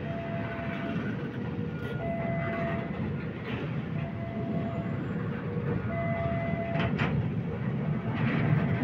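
Railway oil tank wagons rolling slowly past close by while being shunted: a steady low rumble of wheels on rail, with one sharp clack about seven seconds in. Over it, a two-tone level-crossing warning signal repeats, a higher tone then a lower one, about once every two seconds.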